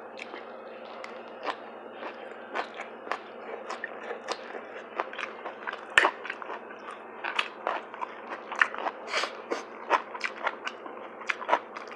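A person chewing and biting food close to the microphone, with a run of short, sharp crunching and smacking sounds, the loudest about halfway through.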